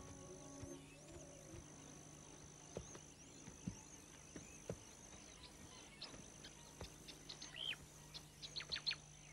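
Faint wildlife ambience: scattered short bird chirps, several in quick succession near the end, with a few soft clicks over a thin steady high tone and a low hum.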